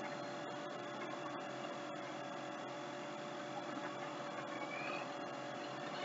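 Steady background hum with a faint hiss: room tone picked up by the recording microphone, with no distinct events.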